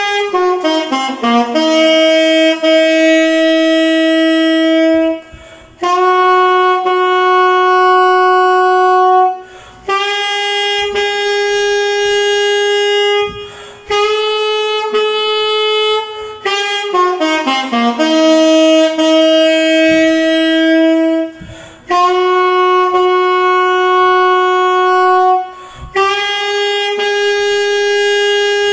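Alto saxophone played solo: a quick descending run of notes leading into a series of long held notes with short breaths between them. The whole phrase is played twice, the second time beginning about halfway through.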